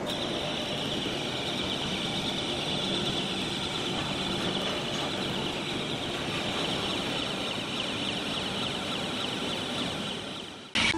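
Electric rail transfer cart's drive motor and gear reducer running steadily as the cart travels on its rails, a high whine over a low steady hum. The sound cuts off abruptly with a short click near the end.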